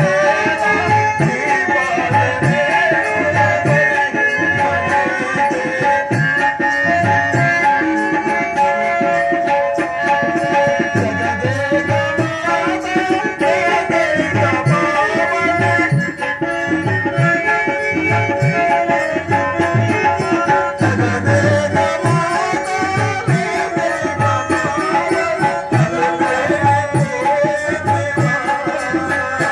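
Live accompaniment music for a stage drama: a sustained, gliding melody over a steady drum beat.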